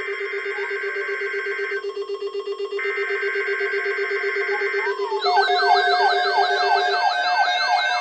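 Electronic alarm and siren sounds: a fast-pulsing buzzing tone under a high steady alarm tone that breaks off for about a second and resumes. About five seconds in, several electronic siren sweeps join, a fast yelp and a higher, slower wail.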